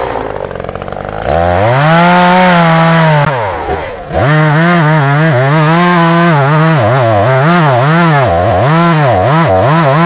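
Gasoline chainsaw idling, then revved up to full speed and held as it cuts into a brush pile, dropping back briefly about four seconds in. Near the end it runs through a series of short throttle blips, the pitch rising and falling in quick succession.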